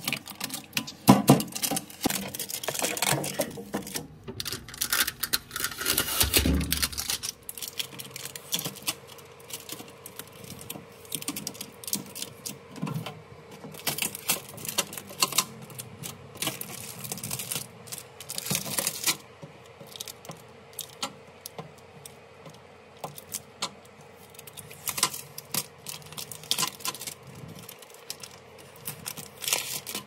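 Blue packing tape being peeled off the shelves and fittings inside a new refrigerator and crumpled in the hand: irregular crackling and sharp plastic crinkles, busiest in the first few seconds, then sparser.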